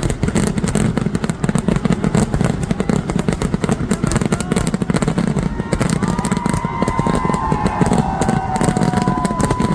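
Fireworks barrage: a dense, continuous crackle of many firecracker bangs running together, with a few wavering tones over it in the second half.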